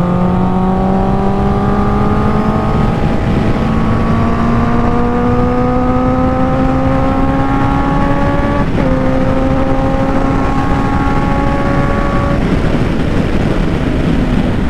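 Honda CBR650 inline-four engine pulling at highway speed. Its note climbs slowly, drops with an upshift about nine seconds in, then fades as the throttle is eased off near the end. Heavy wind rush runs under the engine throughout.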